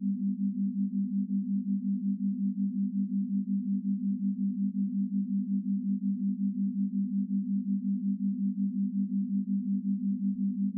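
Low electronic sine tone near 200 Hz, held at a steady pitch and pulsing evenly several times a second.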